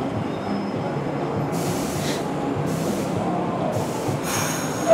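Bombardier R62A subway train standing with its doors open, a steady low hum from its running equipment, with three short bursts of hiss in the second half.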